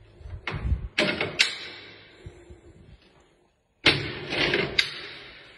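Metal slide bolt on a cell door's food hatch being worked, with a few sharp metallic clacks in the first second and a half. Just before four seconds in, a loud clang as the hatch is pulled open, then a couple more clanks that ring and fade.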